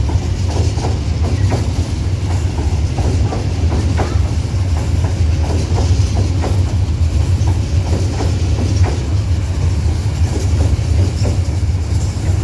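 Babaranjang coal train rolling past at close range: a steady loud rumble with a running stream of wheel clacks over the rail joints.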